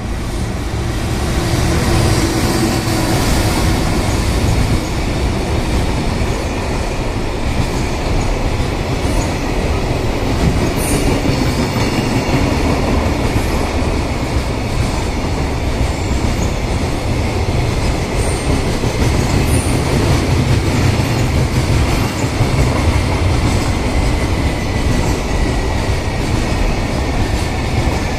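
A container freight train hauled by an EF210 electric locomotive passes at speed: a loud, steady rumble and clatter of wheels on the rails that builds over the first two seconds, with a few short high wheel squeaks.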